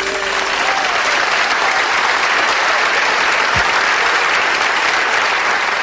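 Live concert audience applauding at the end of a song: a steady wash of clapping.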